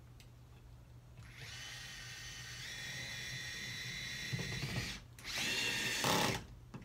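Cordless drill driving a screw through a metal shelf bracket into a toggle bolt anchor in the wall. A steady motor whine starts about a second in, rises briefly in pitch as it spins up, and holds for about four seconds before stopping. A second, shorter run follows near the end.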